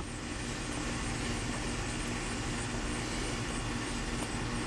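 Steady low background drone with a faint hum and no distinct events, after a brief click at the very start.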